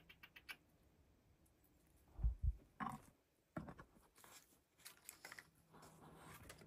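Short scratchy rustles and clicks of a winter-white weasel moving about in a stacked firewood pile, with two dull low thumps about two seconds in.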